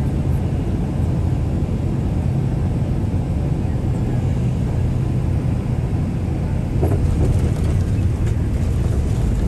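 Airliner cabin noise as the plane rolls on the ground: a steady low rumble of the jet engines and wheels, getting a little louder about seven seconds in.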